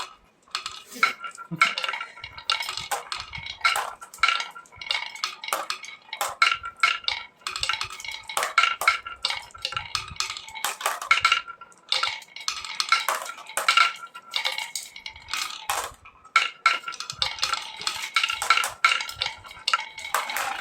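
Small hard toy pieces clinking and clattering in rapid bursts throughout, with a ringing note to the clinks.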